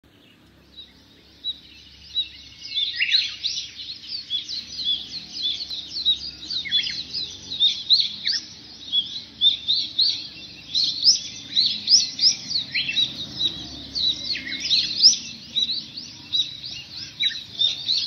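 Birds chirping in a dense chorus: many quick, high chirps and short sweeps overlapping without a break, starting about two seconds in after a quieter opening.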